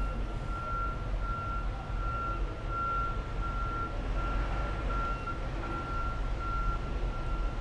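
A backup alarm beeping steadily, about once every three-quarters of a second, over the low rumble of a tractor-trailer reversing slowly.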